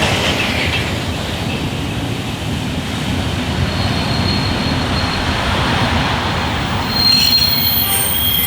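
Train running on the rails with a steady rumble. Its wheels start to squeal about halfway through, and the squeal grows into several high, shrill tones near the end.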